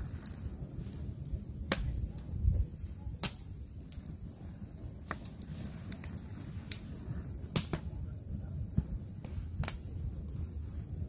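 Campfire crackling: irregular sharp pops and snaps from the burning wood over a low steady rumble, with a dull low thump about two and a half seconds in.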